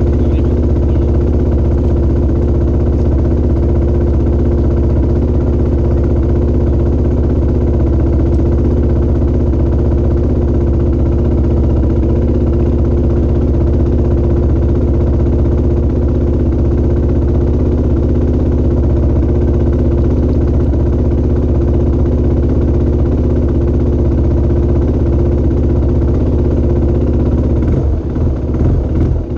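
Motorcycle engine idling steadily, heard close up from a camera mounted on the bike. Just before the end the steady note breaks up as the bike begins to move off.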